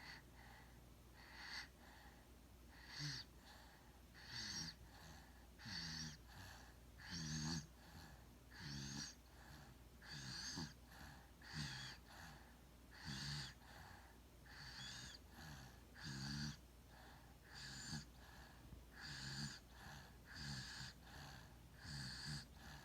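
A person snoring in their sleep, quiet and regular, about one snore every second and a half, each with a low buzz and an airy hiss.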